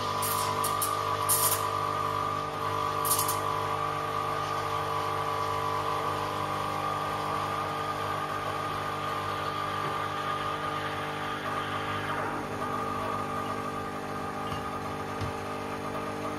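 Nuova Simonelli Oscar espresso machine's vibratory pump humming steadily while an espresso shot is pulled, with a few light clicks in the first few seconds.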